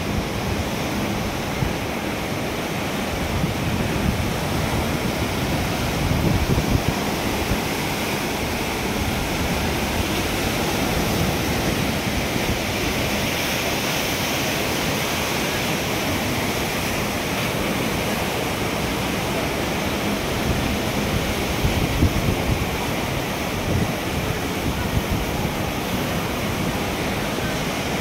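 Ocean surf breaking and washing onto a beach in a steady roar, with wind gusting on the microphone.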